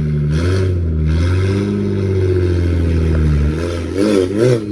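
BMW 335i's turbocharged straight-six engine, converted to a big single Precision turbo, pulling hard under acceleration. Its pitch climbs and then holds steady before it eases off about three and a half seconds in, followed by two quick wavering rises and falls near the end.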